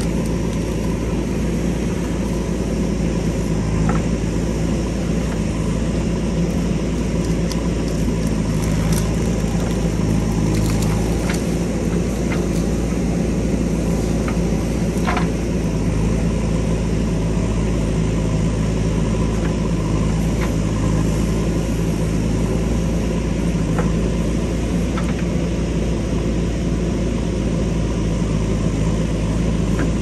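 JCB 3DX backhoe loader's diesel engine running steadily under load while the backhoe arm digs, with a few short clicks and cracks as the bucket works through soil and roots.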